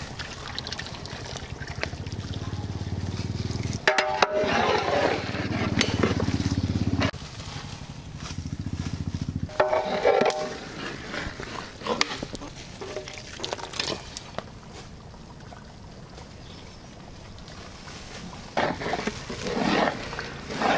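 Background music with a low drone that stops after about ten seconds. Scattered clinks of a metal ladle against a large cooking pot follow.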